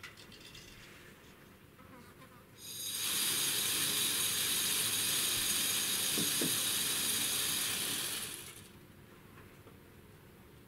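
A loud, steady, high-pitched insect buzz that starts about two and a half seconds in, holds for about six seconds, then fades out. A single sharp click comes right at the start.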